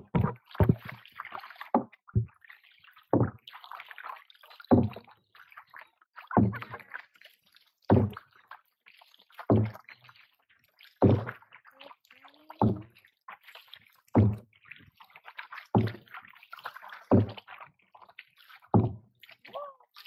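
Kayak paddling with a wooden paddle: a steady rhythm of strokes, about one every second and a half, each a sharp low splash of the blade entering the water, with water swishing and dripping between strokes. There are a few quicker strokes at the start.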